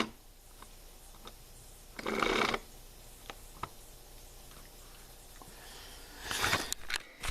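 Hands working on a chainsaw and tools: scattered light clicks, a short scraping rasp about two seconds in, and louder rustling and clatter near the end.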